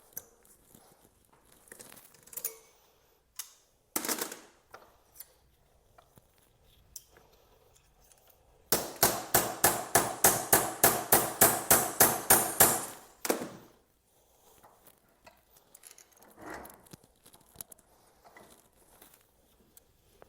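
A zip tie being pulled tight, its ratchet clicking rapidly, about five clicks a second for some four seconds midway, among scattered handling clicks and knocks.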